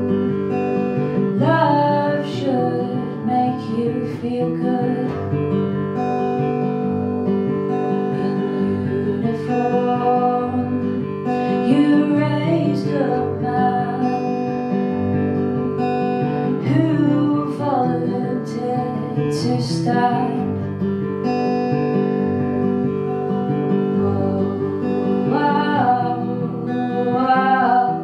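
Acoustic guitar strummed steadily, with a woman singing over it at intervals.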